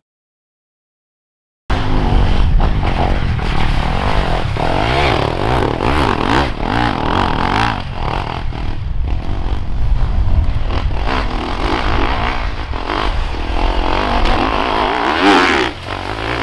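Enduro dirt bike engines revving hard, pitch rising and falling as the bikes accelerate on an off-road track. The sound cuts in abruptly about two seconds in, after a brief silence.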